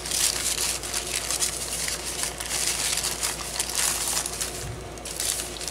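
Painted sheets of waxed deli paper crinkling and rustling as they are handled and laid down, with many small crackles.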